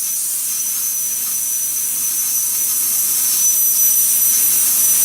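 Plasma cutter torch cutting metal: a steady high hiss of the arc and air jet with a thin high whistle, growing slightly louder toward the end.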